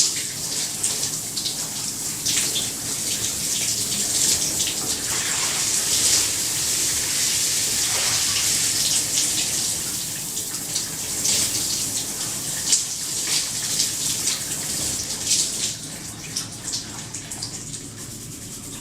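Shower running: a steady hiss of spraying water with irregular splatters as it hits the surface below, growing quieter over the last few seconds.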